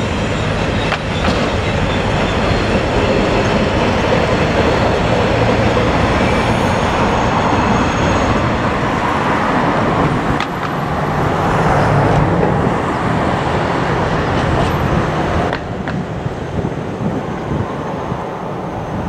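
Freight train wagons rolling past on the rails: steady wheel-on-rail rumble with some clatter. Partway through, a diesel locomotive approaching, with a low engine hum under the wheel noise that swells and then eases off near the end.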